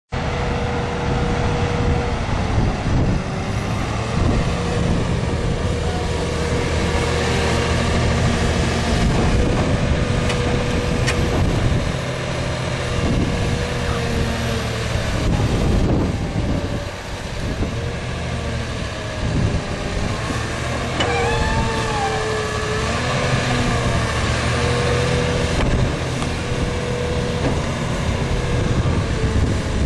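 Komatsu PC360LC-10 excavator's 8.85 L six-cylinder turbo diesel running under load while digging, with a steady whine that bends up and down in pitch about two-thirds of the way through.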